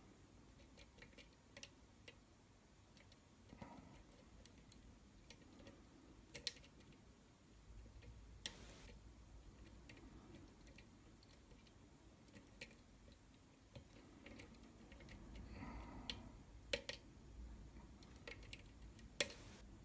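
Faint, scattered metallic ticks and clicks of a pick working the pins of a Falcon pin-tumbler lock under tension, with a few louder clicks.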